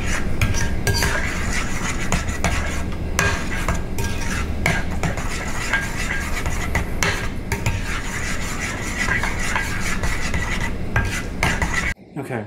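A spoon stirring thick pumpkin bread batter in a glass bowl, with continuous scraping and frequent clinks of the spoon against the glass. It stops abruptly near the end.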